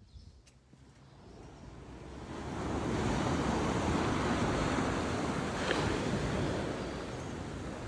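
Waves washing onto a sandy beach, an even surf noise that swells up over the first couple of seconds and then holds steady, with some wind on the microphone.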